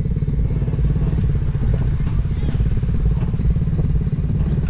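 An engine idling steadily, its firing pulses coming in a rapid, even beat.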